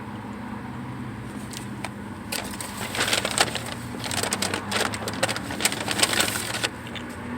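Paper food wrapper crinkling and crackling as it is handled, for about four seconds from about two seconds in.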